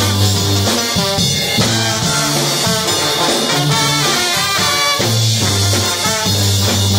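Brass band playing a swing/ska-style tune: trumpets and trombones over a sousaphone bass line of held low notes, with drums.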